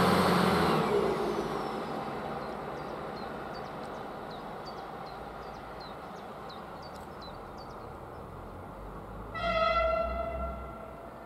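Stadler RegioShuttle RS1 diesel railcar's engines running as it pulls away, fading over the first couple of seconds. Near the end the railcar sounds one horn note lasting about a second and a half.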